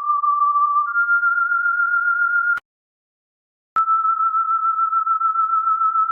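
A steady, high, pure electronic tone that steps up slightly in pitch about a second in. It cuts out abruptly with a click for about a second in the middle, then clicks back on at a slightly lower pitch.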